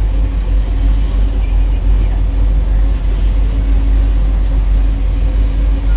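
A trolling fishing boat's engine running steadily, a loud low drone with a constant hum.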